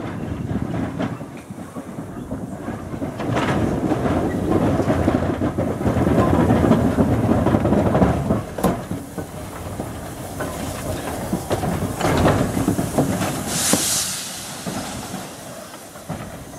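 Andrew Barclay 0-4-0 saddle tank steam locomotive moving slowly along the track: a steady rumble of wheels with scattered clicks over the rail joints. Near the end comes a short hiss of steam.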